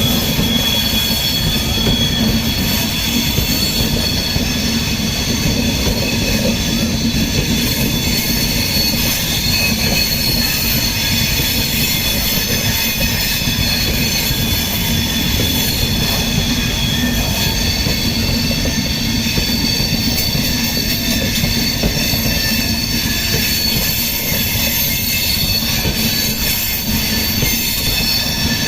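Passenger train's wheels squealing steadily against the rails while rounding a curve: several high, held tones over a loud, continuous rumble of the running train.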